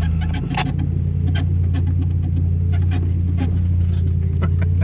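Four-wheel-drive vehicle's engine running at a steady low drone while driving a rough trail, with frequent short clicks and knocks from the vehicle jolting over the ground.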